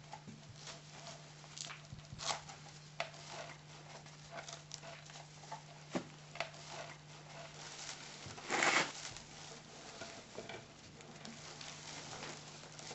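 Scuffling and rustling in straw as bodies move on the ground: irregular crackles and soft knocks, with a louder rustling burst about eight and a half seconds in, over a steady low hum.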